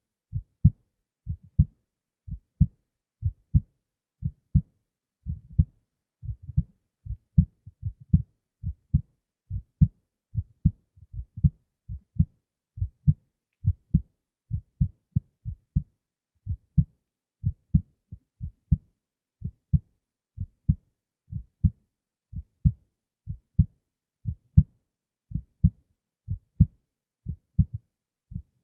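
A human heartbeat heard close up: steady lub-dub pairs of low thumps, about one beat a second, with a brief scuffing noise about six seconds in.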